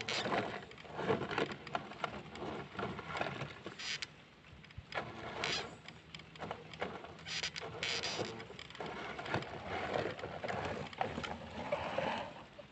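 Electric scale RC crawler driving through dry grass and brush: irregular crackling and scraping of stalks against its tyres and body, over a faint motor and gear hum.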